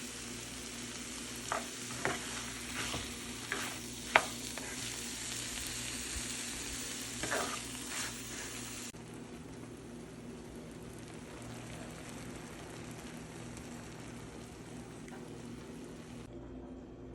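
Frittata egg mixture sizzling in a hot pan, with several sharp scrapes and clicks of a utensil against the pan in the first half, the loudest about four seconds in. About nine seconds in the sizzle drops suddenly to a quieter, steady hiss.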